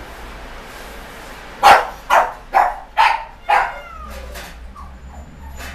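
A dog barking five times in quick succession, about half a second apart, the first bark the loudest.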